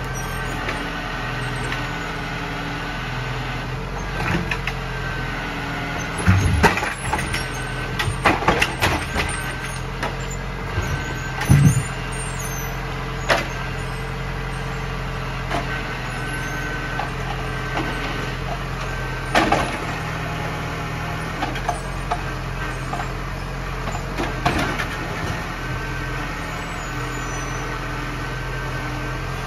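Zetor Forterra 140 HSX tractor's diesel engine running steadily, its speed stepping up and down a little as it drives the forestry trailer's hydraulic log crane, with a high whine that comes and goes. Several heavy wooden knocks and thuds as logs are gripped and laid on the pile, loudest in the first half.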